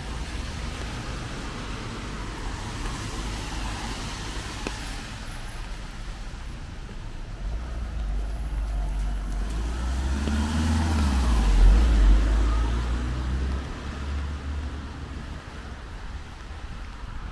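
City street traffic, with one heavy motor vehicle passing close by. Its engine rumble builds to its loudest about two-thirds of the way through, then fades.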